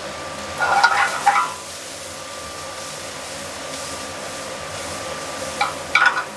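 Shallots frying in oil in a sauté pan on a gas range, a steady hiss, with the metal pan clattering as it is handled on the burner: once about a second in and again near the end.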